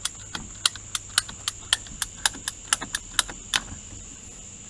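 Ratcheting PVC pipe cutter clicking as its handle is squeezed through white PVC pipe, about four clicks a second, stopping about three and a half seconds in as the cut finishes.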